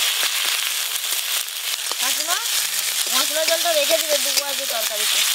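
Ginger, green chilli and cumin paste sizzling in hot oil in a metal wok, a steady hiss, while a metal spatula stirs and scrapes it against the pan with light clicks.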